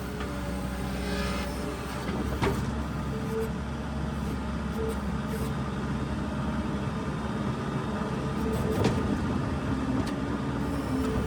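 New Holland skid steer's diesel engine running steadily, with two sharp knocks, one a couple of seconds in and one near the end.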